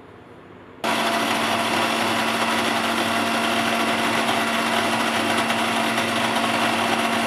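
Electric countertop blender with a glass jar switching on about a second in and running steadily with a constant motor hum, mixing milk and sugar.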